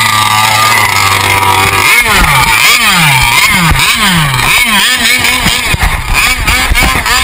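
Small two-stroke RC boat engine running close by, steady at first, then revved in a quick series of short blips, each dropping back in pitch.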